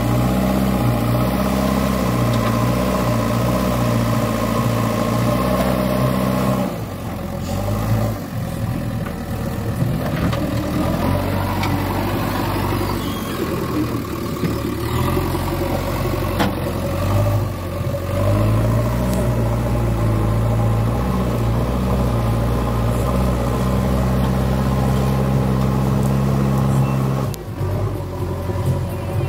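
JCB backhoe loader's diesel engine running steadily as the machine drives over loose dirt and pushes soil with its front bucket, its note shifting in places as the load changes. The sound dips briefly about a quarter of the way in and again near the end.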